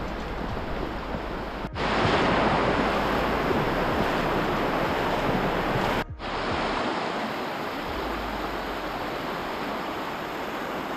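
Steady rush of the Virgin River's water in the Narrows slot canyon, in three stretches split by two abrupt cuts about two and six seconds in. The middle stretch, with a hiker wading through the river, is the loudest.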